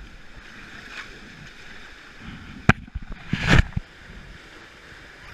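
Whitewater rapids rushing steadily around a raft, with a sharp knock a little under three seconds in and a louder rough burst about half a second later.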